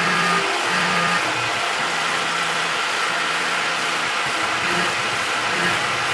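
Tormach 1100 CNC mill cutting steel with a quarter-inch two-flute end mill under flood coolant: a steady hiss of spindle, cutting and coolant. Faint background music runs underneath.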